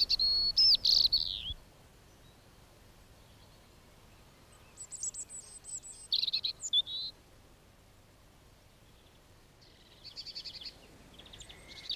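Small songbirds singing in short phrases: clear whistled notes in the first second or so, twittering around the middle, and a fast trill near the end, with near quiet between.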